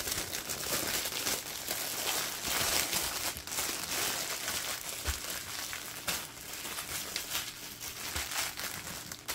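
Clear plastic bag holding small packets of diamond-painting drills crinkling as hands handle and press it.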